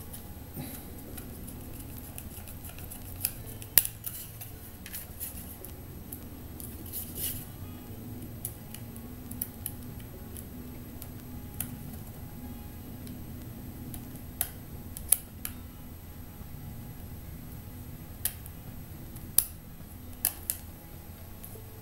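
Scattered small, sharp metallic clicks and taps from a Phillips screwdriver and tiny screws as a laptop SSD is fastened into its metal drive bracket, over a low steady hum.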